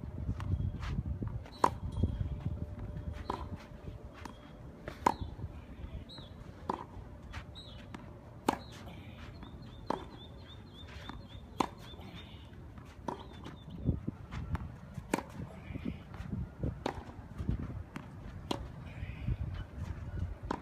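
A tennis rally: sharp pops of a tennis ball struck by rackets, one of them a Prince Textreme Tour 95, coming about every second and a half to two seconds, with softer ball bounces on the clay court in between.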